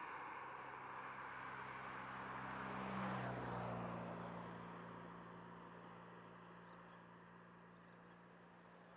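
A road vehicle passes, loudest about three seconds in and then fading away, leaving a steady low engine hum.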